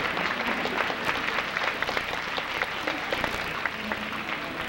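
Arena audience applauding: dense, steady clapping throughout.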